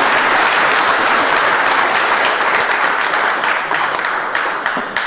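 A crowd applauding, starting suddenly and dying away near the end.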